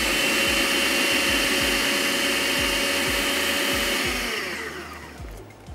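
Electric food chopper kneading dough, its motor running steadily, then switched off about four seconds in and winding down with a falling pitch.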